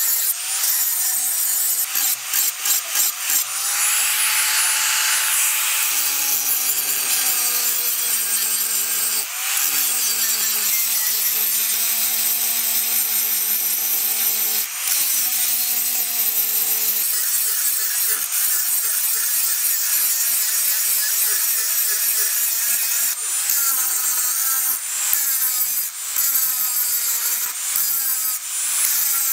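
Electric angle grinder with an abrasive disc grinding a steel blank, a harsh steady grinding noise over the motor's whine, which rises and falls in pitch as the disc is pressed into the metal. The sound breaks off briefly a couple of times and carries straight on.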